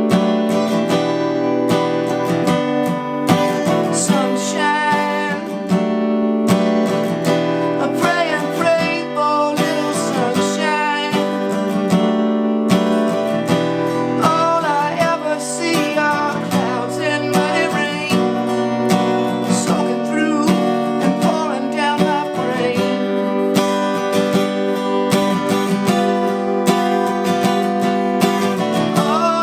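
Acoustic guitar with a capo, strummed steadily, with a man singing over it in places.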